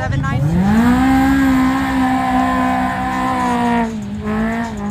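Side-by-side UTV engine revving hard: it climbs steeply about half a second in and holds at high revs under load for about three seconds, then drops back near the end.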